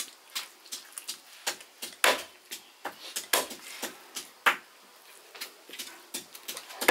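Chicken being chopped into pieces with a knife: irregular sharp knocks, about two a second, some louder with a short ring.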